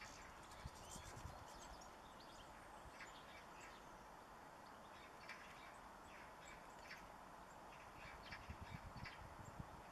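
Faint garden birdsong: scattered short, high chirps and calls, with low rumbles in the first second and again near the end.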